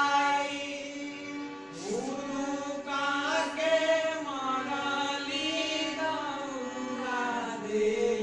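A group of young women singing together to a harmonium, whose steady reed drone sounds under the voices' gliding melody. The voices drop back briefly about a second in and come in again strongly around two seconds.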